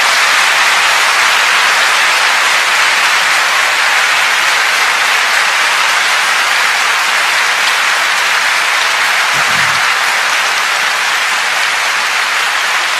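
A large audience applauding, long and steady, after the end of a speech passage.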